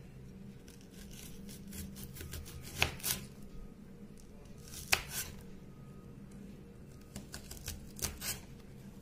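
Serrated knife sawing through a spiny gourd and knocking on the cutting board, with sharp taps in pairs about three seconds in, about five seconds in and near the end. A faint steady hum runs underneath.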